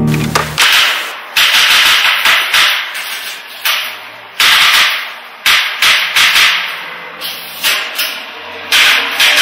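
Old manual typewriter being struck hard: a loud, irregular series of sharp clacks, about one to two a second, each with a short ringing decay.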